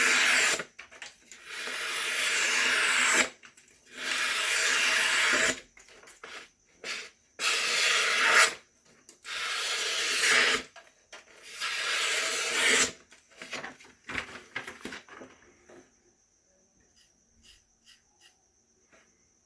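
A freshly sharpened knife slicing through paper in about six long drawn cuts, each a second or two of papery scraping, followed by lighter rustles. This is a paper test of the edge's sharpness.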